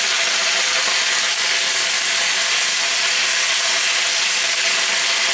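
Vegetables (bok choy, onion and bean sprouts) sizzling steadily in a hot wok while being stir-fried with a plastic spatula.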